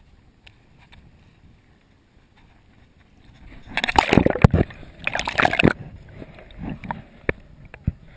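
Water splashing beside a kayak in two loud bursts about four and five seconds in, after a few quiet seconds with faint knocks.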